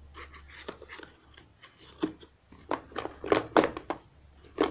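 Cardboard phone retail box being handled and its lid slid off: a series of short scrapes, rustles and light knocks, loudest about three and a half seconds in.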